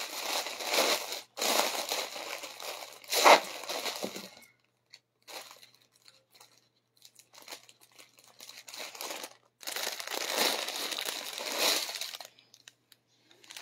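Clear plastic packaging bags crinkling as they are handled, in two spells of a few seconds each with a quieter stretch of faint crackles between them.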